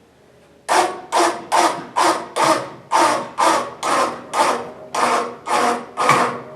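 Small hand-cranked winch being cranked to drag a lathe on its sled, a rasping stroke about twice a second, about a dozen in all.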